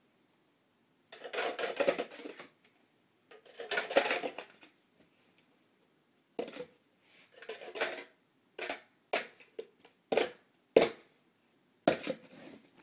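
Plastic party cups clattering and clacking as a cup pyramid is speed-stacked down into nested stacks: two longer rattling bursts in the first five seconds, then a string of separate sharp clacks as cups are snapped together.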